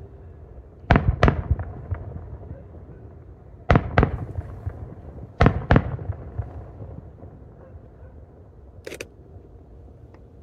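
Fireworks shells bursting: three pairs of sharp booming reports, the two in each pair about a third of a second apart and the pairs about two seconds apart, each trailing off in an echo. Near the end comes a single short, sharper crack.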